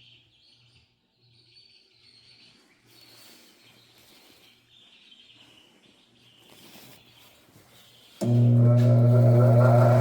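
Faint bird chirps over quiet outdoor background, then about eight seconds in a mains-powered power tool switches on suddenly: a loud steady hum with a whine rising in pitch as it spins up.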